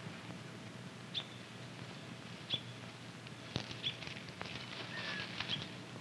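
Faint outdoor field ambience with a handful of short, high chirps and a few soft clicks scattered through it, and one brief falling whistle about five seconds in.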